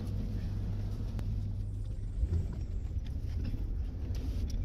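Road noise inside a moving minivan's cabin: a steady low engine and tyre rumble, with a few faint, irregular clicks.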